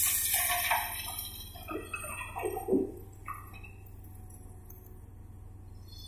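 Coal pouring from a Komatsu PC800 excavator bucket into the steel bed of a Caterpillar 740B articulated dump truck: a loud rush of falling coal in the first second that fades out, then scattered clinks and knocks of lumps landing and settling, over a steady low diesel engine drone.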